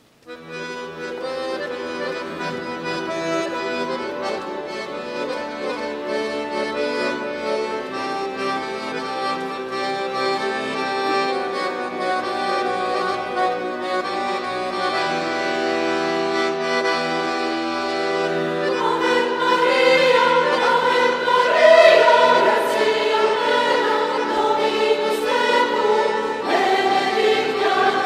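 Accordion starts a slow piece, playing sustained chords; about two-thirds of the way in, a mixed choir comes in singing with the accordion.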